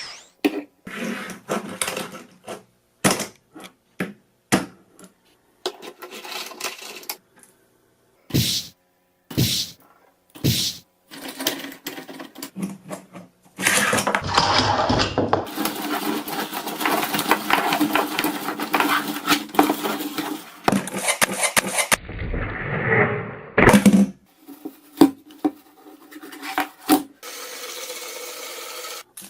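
Hard toy pieces being handled: scattered clicks and knocks, then several seconds of continuous rattling about halfway through, then more knocks.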